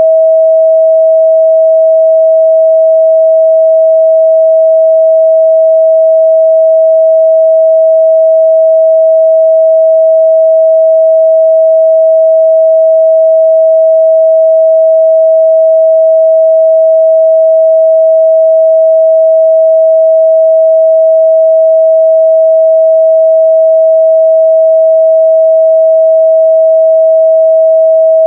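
A steady, loud 644 Hz sine-wave test tone: one pure unchanging pitch with no other sound.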